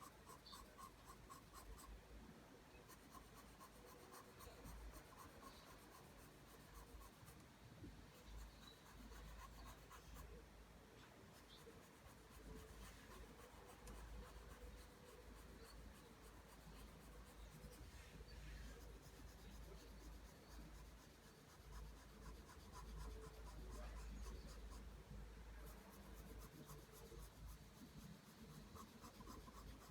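Pencil drawing lines on paper: faint, continuous graphite scratching, with quick runs of short repeated strokes near the start and again near the end.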